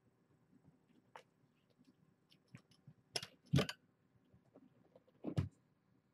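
Kittens wrestling on the carpet right beside the webcam: scattered clicks and soft knocks, with two loud thumps about three and a half seconds in and another just before the end.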